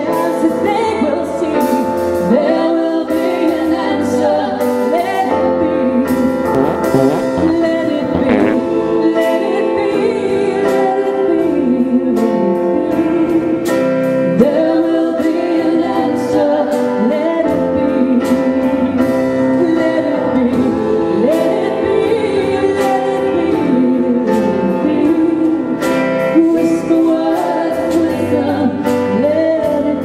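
Live band performance with women singing, a lead vocal and backing harmonies over a steady band accompaniment.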